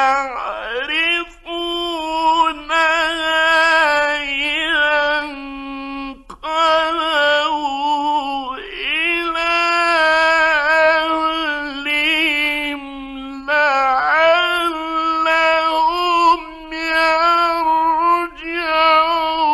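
Male Quran reciter's voice in melodic tajweed recitation, drawing out long ornamented notes that waver and glide, with short breaks for breath about six seconds in and again past thirteen seconds. An archival 1964 radio recording.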